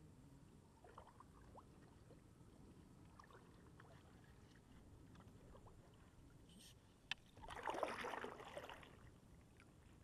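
Faint drips and small water ticks around a plastic kayak. A sharp click about seven seconds in, then a splash of water lasting about a second and a half.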